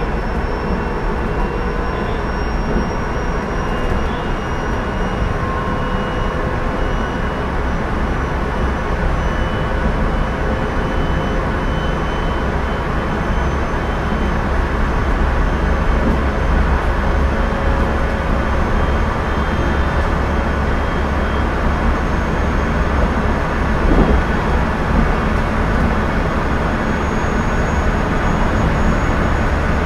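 JR Central 373 series electric train running, heard inside the motor car KuMoHa 373-13: a steady rumble of wheels on rail with a faint whine that rises slowly in pitch. A single knock sounds about 24 seconds in.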